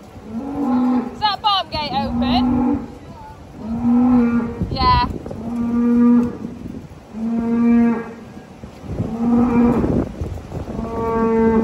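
Holstein-Friesian dairy cows mooing again and again, about eight steady-pitched moos, each under a second long, one every second or so.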